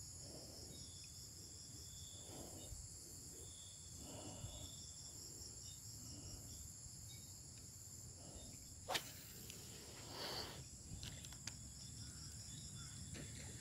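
Faint steady chorus of insects chirping, with a sharp click about nine seconds in.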